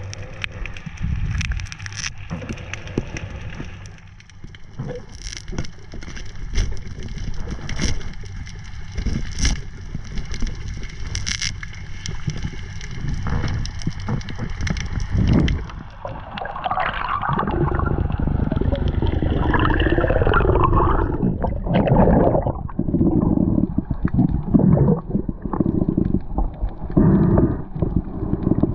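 Muffled underwater sound: scattered sharp clicks and crackling at first, giving way a little past halfway to loud bubbling and gurgling of water with wavering sweeps.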